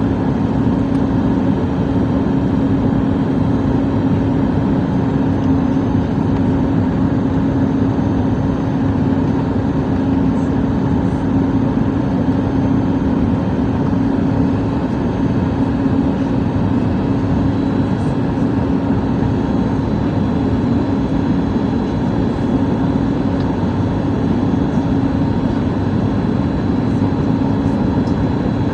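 Steady cabin noise inside a Boeing 737 MAX airliner in flight: an unchanging drone of engines and rushing air with a strong low hum.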